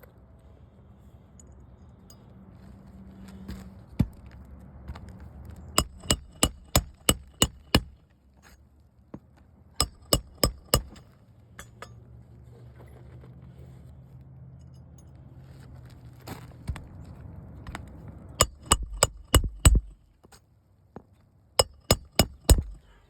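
Hammer driving roofing nails into asphalt shingles: four quick runs of four to six blows each, every blow with a sharp metallic ring.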